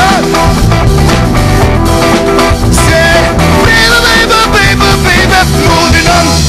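Live rock band playing loudly: electric guitars, bass, keyboard and a drum kit with steady drum and cymbal hits.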